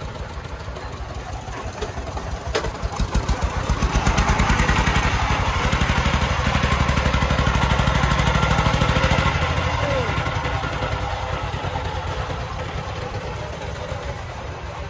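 Single-cylinder diesel engine of a loaded công nông three-wheeled dump truck chugging. It works harder and louder for several seconds in the middle as the truck pushes through soft, muddy earth, then eases off.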